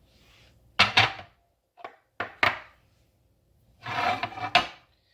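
Kitchen items being handled on a countertop: a series of knocks and scrapes, the loudest about a second in, with a longer scraping rattle ending in a knock near the end.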